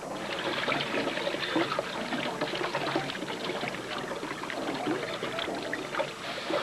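Water running and trickling, a busy splashing with many small drips and gurgles.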